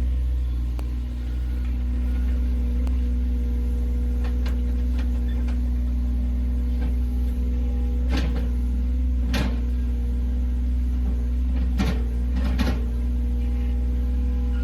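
Excavator's diesel engine running at a steady pitch, with four sharp knocks of the machine working, the loudest just over halfway through.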